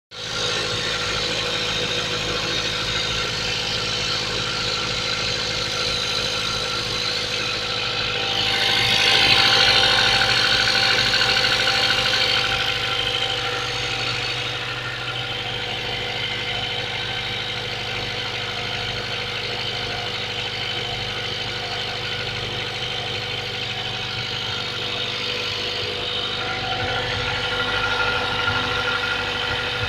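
Mazda 3 1.6-litre engine idling cold, with the knock from the engine that the uploader is showing. It grows louder for a few seconds about a third of the way in, then settles back to a steady idle.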